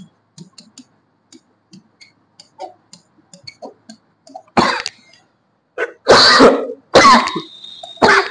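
A man coughing and clearing his throat about four times in the second half, the loudest coughs close together. Before that there are only faint light ticks, as of a marker writing on the board.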